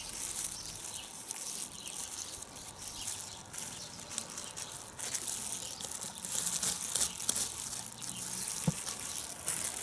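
Rustling and crinkling of thin plastic gloves and cotton wool as a knife blade is wiped with alcohol, over a steady hiss of insects chirping outdoors.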